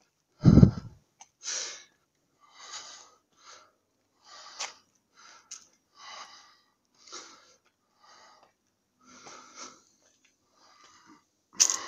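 A man breathing hard while climbing steep concrete stairs: short, hissing breaths about once a second. A loud, dull thump comes about half a second in.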